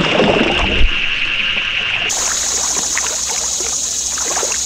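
Creek water splashing, with one loud splash a little under a second in, then irregular trickling and dripping. A steady high insect drone runs behind it.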